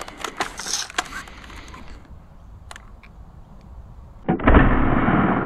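ZWQ S100 Nerf sniper blaster being handled between shots: a few light clicks, then about four seconds in a loud rough scraping slide lasting about a second as it is primed for the next shot.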